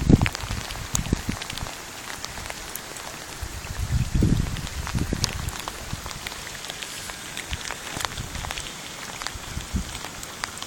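Steady rain falling, with many separate drops ticking onto nearby surfaces. There are a few low thumps at the start and again around four to five seconds in.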